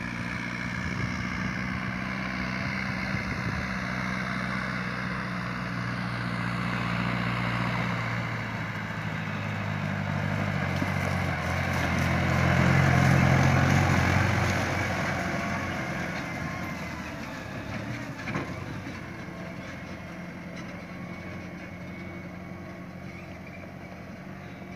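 Tractor engine pulling a trailer loaded with chopped maize. It grows louder as the tractor approaches, is loudest as it passes close about halfway through, then fades as it drives away.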